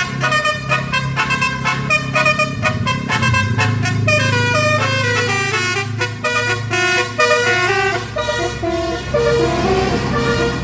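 Indonesian bus 'telolet' multi-tone horn playing a tune. It starts with rapid repeated toots, then moves to a stepped melody of held notes over the bus engine's low running sound.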